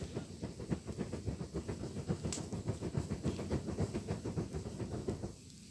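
Rapid rhythmic whooshing of a fire being fanned by hand to stoke it, several strokes a second, stopping abruptly near the end.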